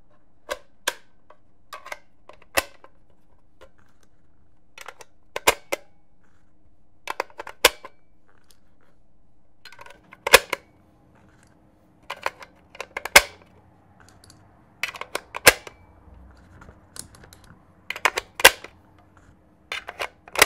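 Metal clicks and clacks from the mechanism of an old submachine gun being handled and worked by hand: a string of sharp single and doubled clicks at uneven intervals, over a faint steady hum.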